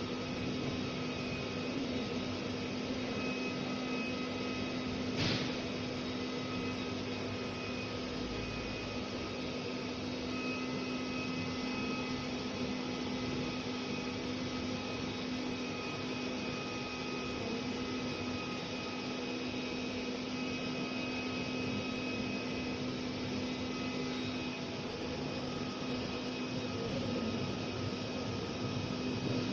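Hot-air BGA rework station running, its blower and cooling fans giving a steady hum with a few constant tones. A single sharp click about five seconds in.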